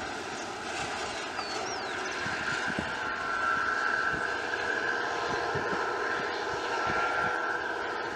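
GM GT22CW two-stroke diesel locomotive hauling a loaded freight train: a steady engine drone with a high whine, growing a little louder about three seconds in.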